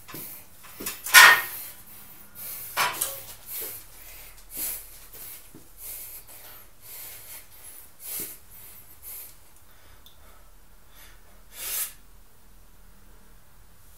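A person's short, sharp breaths in and out while setting up under a barbell in the squat rack, about half a dozen audible ones, the loudest about a second in and a last one near the end.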